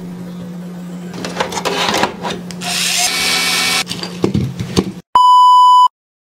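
Computer parts being handled and fitted into a metal NAS case: clicks and knocks of metal and plastic over a steady low hum, with a burst of noise lasting about a second in the middle. Near the end, a loud, steady beep lasting under a second.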